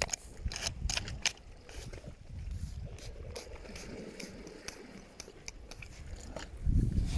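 Scattered sharp clicks and knocks, several close together in the first two seconds, over a low rumbling noise that swells into a loud burst near the end.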